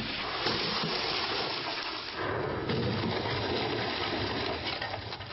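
Smart car speeding along a wet road and crashing into a concrete wall: a steady rushing, splashing hiss that grows louder again about two and a half seconds in.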